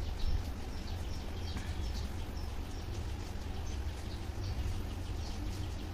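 Steady low rumble of room background noise with faint, scattered high bird chirps.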